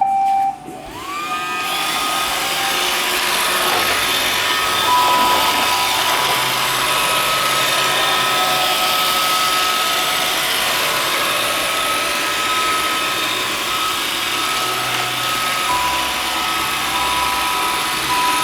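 iRobot Roomba 580 robot vacuum starting a cleaning run: a short tone right at the start, then its vacuum and brush motors spin up with a rising whine and run on steadily with a whirring hum and high whine.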